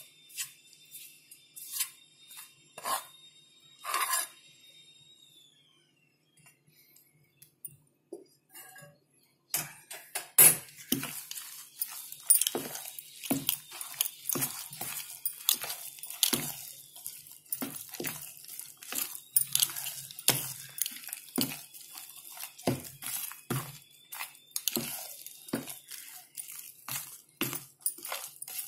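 A hand mixing thick, coarse idli batter studded with fried cashews, chillies and curry leaves in a plastic bowl: a fast run of irregular strokes starting about ten seconds in. Before that come a few sharp knocks in the first four seconds, then several seconds of near quiet.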